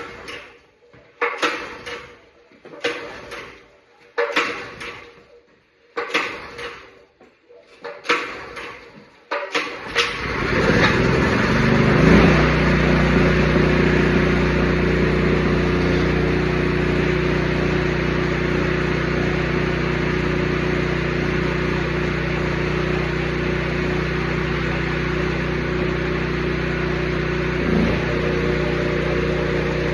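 A series of about seven knocks and clatters, then about ten seconds in a Porter-Cable 24-gallon oil-lubricated air compressor starts up and runs steadily, its electric motor and pump humming and clattering, freshly serviced with new oil.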